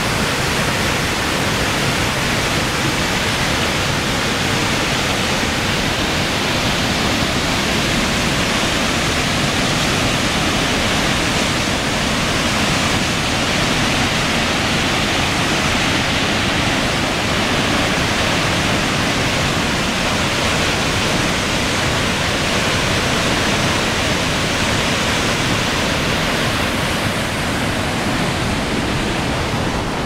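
Mountain stream waterfall pouring into a rocky pool: a loud, steady rush of white water. It turns slightly duller near the end.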